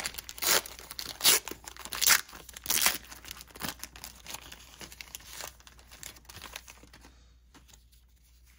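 Paper wax pack of 1990 NFL Pro Set football cards being torn open and crinkled, with the loudest crackles in the first three seconds, then fainter rustling of wrapper and cards that dies away about seven seconds in.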